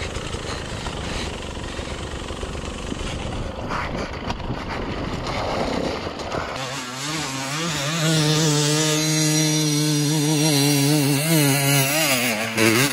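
Two-stroke dirt bike engine, a 2020 Beta 200RR, running on a steep loose climb, heard up close as a rough noisy mix. About six and a half seconds in the sound changes to a dirt bike engine heard from farther off, growing louder, its pitch wavering up and down as the rider works the throttle up the slope.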